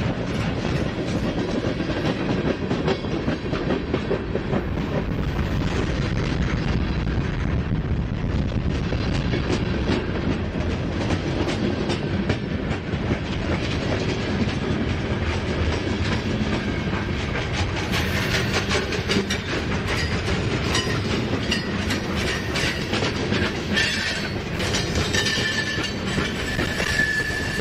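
Freight cars (boxcars, tank cars and gondolas) rolling past close by: a steady rumble with the clickety-clack of wheels over rail joints. Near the end the wheels give a thin, high squeal in the curve.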